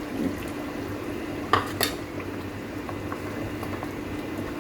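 A spoon stirring mutton in a clay handi, knocking twice against the pot about a second and a half in, over a steady low hum.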